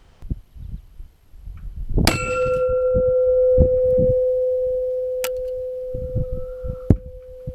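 A single sharp metallic strike about two seconds in, followed by a long ringing tone from struck steel that slowly fades over several seconds. A few fainter clicks and low thumps occur around it.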